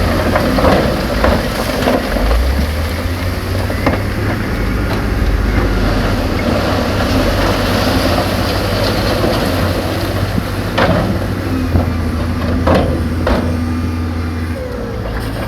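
Diesel engine of a heavy earthmoving machine running with a steady low rumble, with a few sharp knocks near the end.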